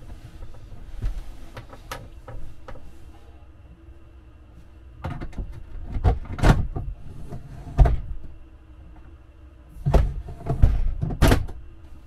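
Plastic clunks and sharp clicks of a camper's roof skylight hatch being pushed open and let back down. The clicks come in two bunches, about five to eight seconds in and again about ten to eleven seconds in. Softer bumps and rustling come before them as someone shifts on a cushioned bed.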